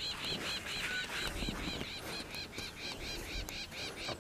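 A bird calling in a fast, even run of high chirps, about six a second, over a low background rumble.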